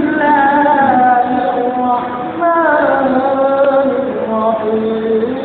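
A single voice chanting a melodic recitation in long held notes that slide slowly between pitches, with a short breath break about two seconds in.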